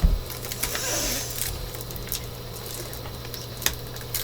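A bag of slime being handled: scattered soft plastic rustles and small clicks, with a bump right at the start and a short rustle about a second in.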